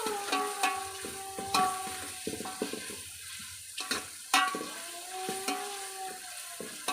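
A ladle stirring and scraping food frying in a pan, with repeated sharp clicks of metal on metal over a sizzling hiss.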